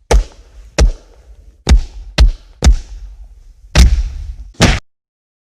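A series of seven loud, sharp impact thuds at uneven intervals, each with a short ringing tail, ending abruptly about five seconds in.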